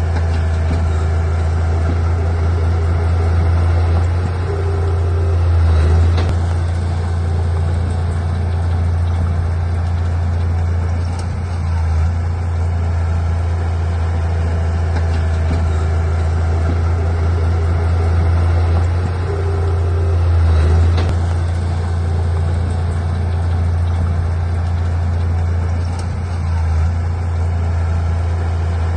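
Heavy diesel engine of earthmoving machinery running steadily with a deep drone. It swells twice, about six and twenty seconds in, and dips briefly about twelve and twenty-six seconds in.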